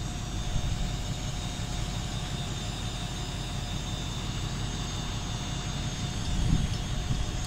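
Dump truck's engine running steadily at idle, a constant drone with a faint high whine; wind buffets the microphone near the end.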